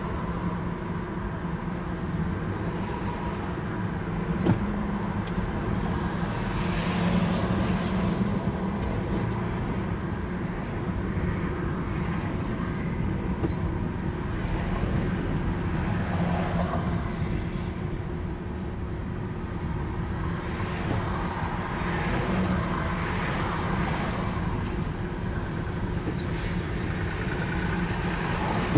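Car driving at highway speed: steady road and engine noise, with other vehicles rushing past several times.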